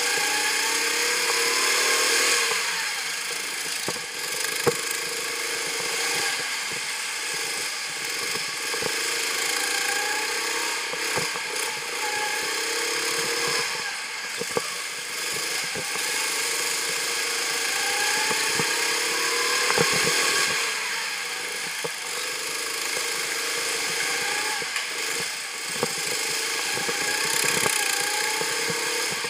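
Go-kart engine heard from on board, its pitch repeatedly climbing as it revs up along the straights and dropping back when it lifts off into the corners. Occasional sharp knocks.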